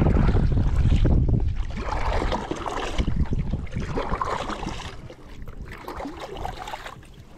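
Water splashing and sloshing around a small boat on the move. Wind buffets the microphone for about the first second and a half, and the water noise grows fainter toward the end.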